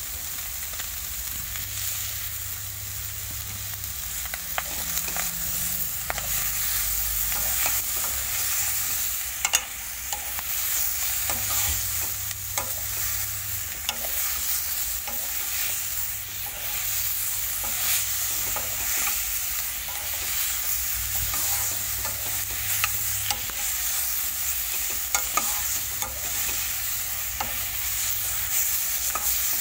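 Chicken, potato and onion sizzling in a hot kadhai with no oil, while a metal spoon stirs them, scraping and clicking against the pan. A steady hiss runs under frequent short clicks of the spoon.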